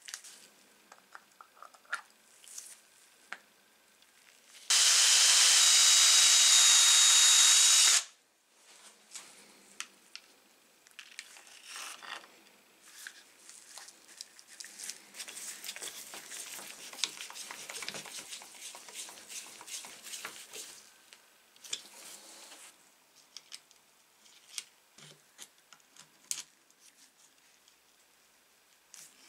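A power tool runs for about three seconds, starting and stopping suddenly. Around it are light clicks and handling noises from tool parts.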